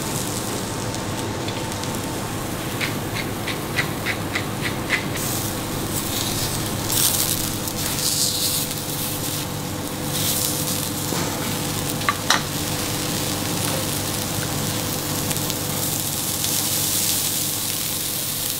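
Halved aubergines searing in olive oil on a hot stainless steel plancha, sizzling steadily, the sizzle surging louder a few times. A quick run of light ticks comes a few seconds in, and a sharp click about twelve seconds in.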